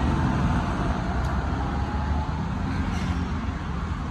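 Street traffic noise: motor vehicles running and passing on a rain-wet city street, a steady low rumble with a hiss over it.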